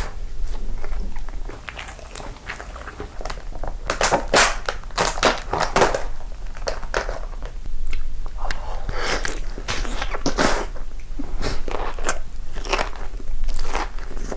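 A person biting and chewing crunchy food close to the microphone: irregular clusters of crisp crunches and crackles, denser and louder from about four seconds in.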